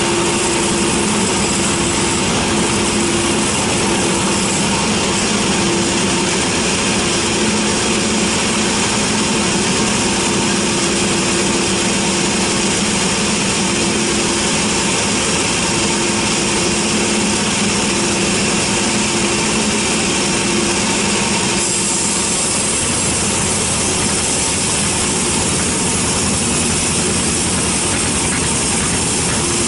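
Large 42 band sawmill running steadily, its band blade ripping a teak log, with a constant machine hum under the noise of the cut. The sound changes about 22 seconds in as the blade, which had run clear of the wood, goes back into the log for the next pass.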